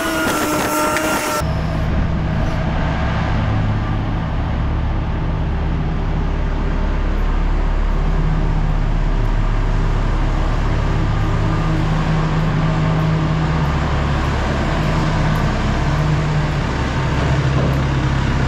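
Motor vehicle engine running steadily with a low, even hum. It follows an abrupt cut about a second and a half in, where a brief sliding pitched sound stops.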